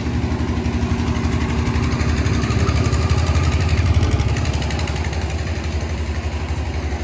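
An engine running at idle with a steady low pulsing, swelling slightly about three to four seconds in.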